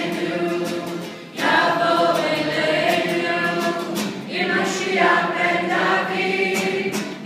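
A congregation singing together from song sheets, many voices at once, with a brief pause between lines about a second in before the singing resumes at full strength.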